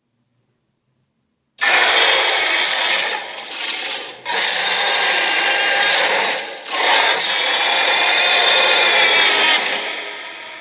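Dinosaur roar sound effect: a harsh roar in three long surges that starts suddenly about a second and a half in, then trails off near the end.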